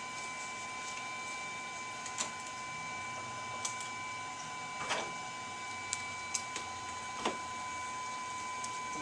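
Steady whine and fan noise from a Puhui T-862++ infrared rework station running with its preheater on, with a handful of sharp clicks and rustles as a respirator and goggles are strapped on.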